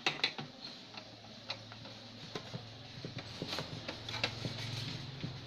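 Irregular clicks and taps of tools and hands working on a CRT TV's plastic cabinet while a speaker is being removed, over a low steady hum.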